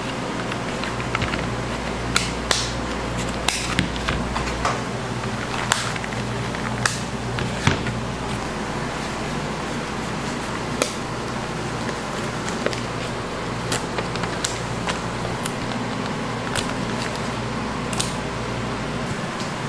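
Steady machine hum with scattered sharp clicks and taps. A low rumble under the hum drops away about five seconds in and comes back near the end.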